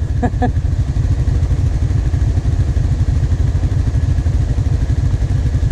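Quad bike (ATV) engines idling at close range: a steady, low, pulsing rumble.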